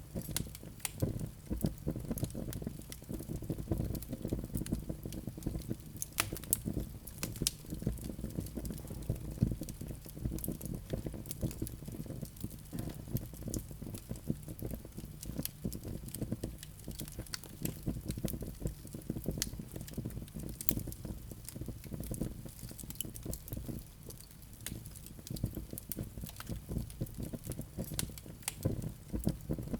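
Wood fire crackling: a steady run of sharp pops and snaps over a low, continuous rush of the burning logs.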